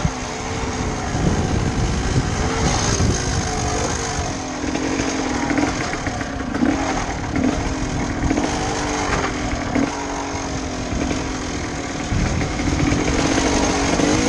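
A GasGas 250 EC enduro motorcycle's two-stroke engine, heard from the rider's helmet, revving up and dropping back again and again as the throttle is opened and closed, riding at low speed.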